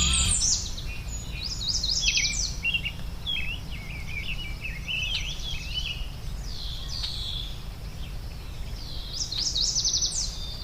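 Several songbirds singing and chirping in quick, overlapping phrases, busiest about two seconds in and again near the end, over a steady low outdoor rumble.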